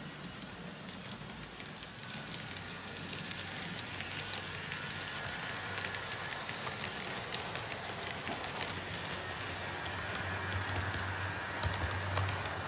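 N-scale model passenger train running on the layout's track: a steady hiss of wheels on rail under a low motor hum, with many small clicks.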